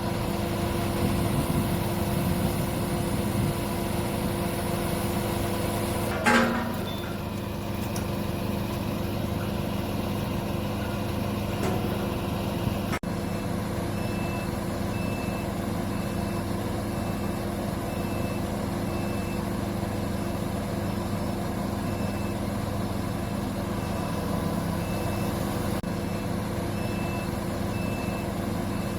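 XCMG QY25K5A truck crane's diesel engine running steadily, with a short loud blast about six seconds in. From about halfway on, a warning beeper sounds about one and a half times a second.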